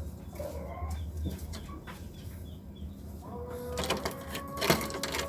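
Domestic pigeons cooing in courtship, the calls growing louder in the last couple of seconds, with a sharp knock near the end.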